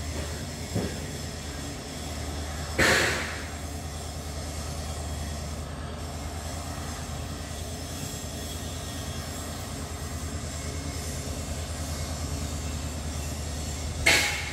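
Twin diesel locomotives of a slow-moving oil tanker train running with a steady, low engine rumble. Two short, loud bursts of scraping noise come about three seconds in and again near the end.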